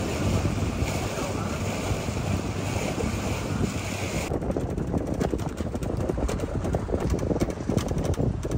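Wind buffeting the microphone over the rush of a boat moving across the water. About halfway through it cuts abruptly to a low rumble with many quick clicks and rattles, as of a cart rolling over boardwalk planks.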